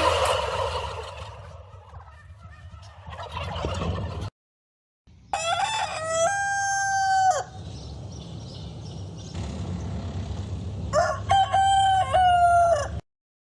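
Rooster crowing twice, each crow about two seconds long and about five seconds apart, from a recorded sound clip over a steady background hiss.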